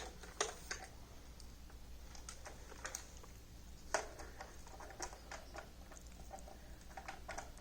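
Small objects being handled and rummaged through: scattered light clicks and taps, with louder knocks shortly after the start and about four seconds in.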